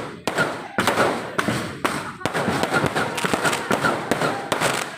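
Fireworks going off in rapid, irregular succession: a dense run of sharp bangs and crackles, many overlapping.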